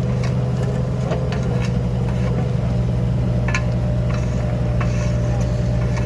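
A steady engine hum with irregular sharp clicks and knocks over it, several in the first two seconds and a clear one about three and a half seconds in.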